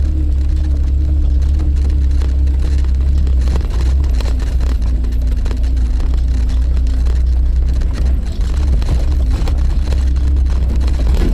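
Suzuki Jimny on the move: a loud, steady low rumble of engine and road noise. Over it runs a steady whine that drops slightly in pitch about four seconds in, with scattered rattles and clicks in the last few seconds.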